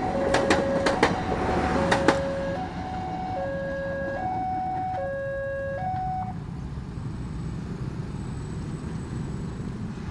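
Railway level-crossing warning alarm sounding a two-tone hi-lo signal, each pitch held just under a second, cutting off about six seconds in as the crossing clears. In the first two seconds the last train wheels clack over the rail joints.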